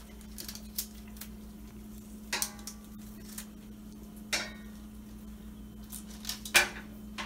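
Kitchenware clattering: a few separate knocks and clinks of dishes or utensils, one ringing briefly about two and a half seconds in and the loudest near the end, over a steady low hum.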